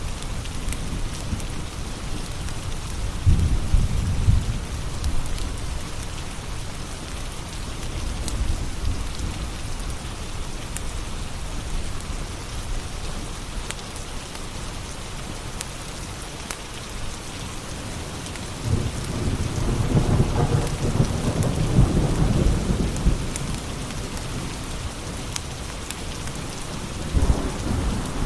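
Steady rain with rolling thunder: a low rumble about three seconds in, a longer, louder one building around twenty seconds in, and another near the end. Faint crackles of a wood fire tick through the rain.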